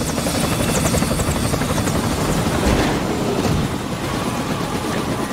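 A helicopter's rotor turns steadily, the blades chopping rapidly over the engine noise.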